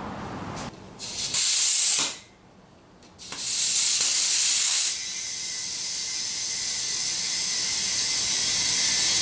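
Compressed air hissing into a side-by-side tire as it is aired up: two short loud blasts about a second and a half and three seconds in, with a brief silence between them, then a steady hiss that grows slowly louder.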